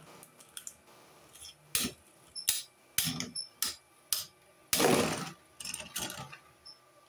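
Two Beyblade spinning tops battling in a plastic stadium: scattered sharp plastic clacks as they strike each other, roughly half a second apart, with a louder, longer rasping rush about five seconds in.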